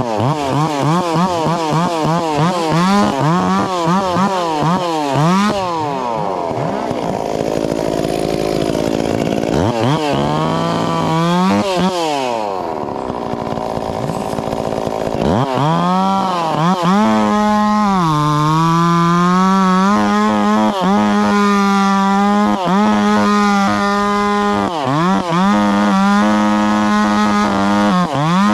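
Stihl 044 two-stroke chainsaw revved up and down again and again, then held near full speed for the second half with short drops in pitch.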